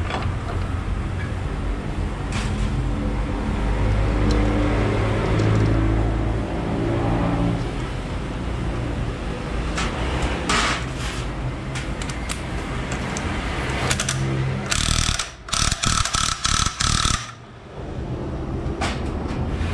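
Workshop tool and metal-part noises during scooter CVT reassembly over a steady low hum; near the end a rapid mechanical rattling comes in several short stop-start bursts.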